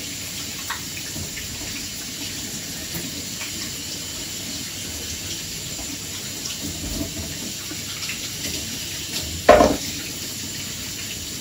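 Kitchen sink tap running steadily while hands are washed under it, with a brief louder clunk near the end.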